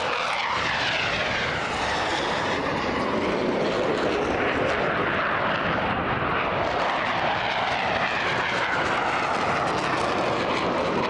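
Jet engine noise from a Eurofighter Typhoon and an F-15 manoeuvring low in a mock dogfight. It is a loud, steady roar, with whines that fall in pitch as the jets pass, once near the start and again around the middle.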